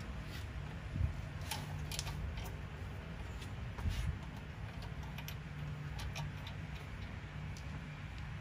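Light metallic clicks and taps of a Mikuni carburetor and its mounting hardware being handled as a nut is threaded onto the carb's bolt through the intake manifold flange, with two duller knocks, one about a second in and one near four seconds. A steady low hum runs underneath.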